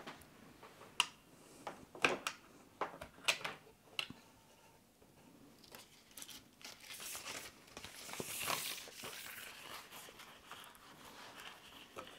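Handling of a small wooden hand-crank music box and its punched paper strip: several sharp clicks and knocks of the box and lid in the first four seconds, then paper rustling and crinkling as the folded strip is unfolded and fed into the box.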